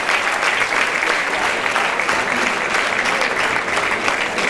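Large audience applauding steadily: many hands clapping at once in a dense, even patter that neither builds nor fades.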